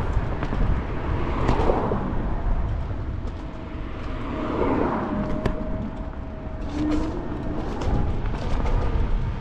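Wind rushing over the microphone and tyre rumble from a Wolf King GTR electric scooter riding along a paved sidewalk, with a faint steady whine for a few seconds in the middle.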